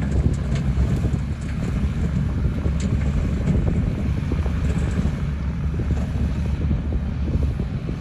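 Small Mitsubishi BD2G bulldozer's diesel engine running steadily as it pushes earth, a constant low rumble with wind buffeting the microphone.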